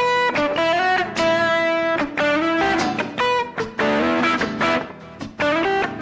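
Lead guitar playing a melodic solo line of single held notes, some bent upward in pitch.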